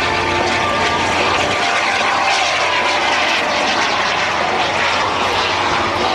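Small jet turbine of a Super Salto sailplane in flight, a steady whine over rushing noise.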